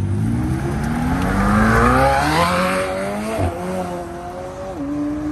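A car accelerating hard past, its engine note climbing steadily and loudest about two seconds in. About three and a half seconds in there is a short knock and the note steps down with a gear change, then holds and drops lower again near the end as the car pulls away.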